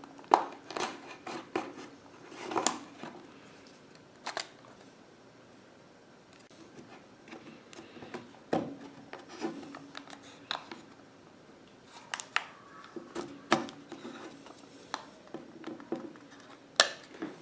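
Plastic pry tool working around the seam of a Microsoft Zune 30GB's case: scattered sharp clicks and snaps as the case halves come apart, with light scraping between.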